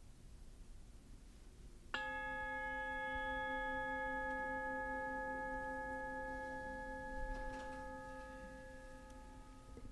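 A single bell-like chime sounds about two seconds in and rings on, slowly fading over several seconds. It is played from a phone's speaker held up to a microphone.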